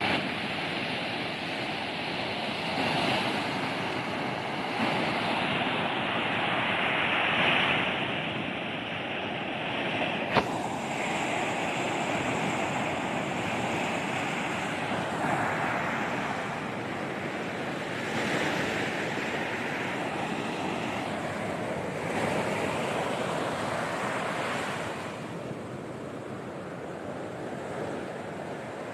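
Sea waves breaking and washing onto a beach, the surf swelling and falling back every few seconds, with some wind on the microphone. There is a single sharp click about ten seconds in.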